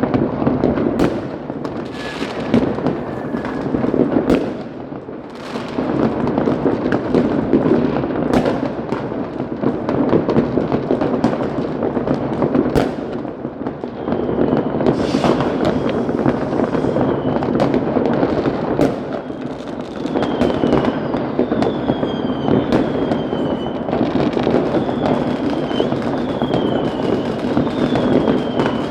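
Fireworks: a dense, continuous crackle of firecrackers with many sharp bangs. From about halfway on, short whistles falling in pitch repeat roughly once a second.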